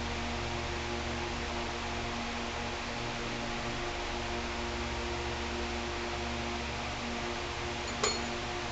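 Steady electrical hum with an even hiss in a repair workshop. About eight seconds in comes a single short metallic clink with a brief ring.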